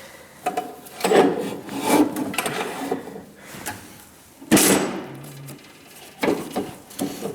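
Hands working on an old snowblower's parts and tools: a series of separate knocks, clanks and scrapes, the sharpest about four and a half seconds in.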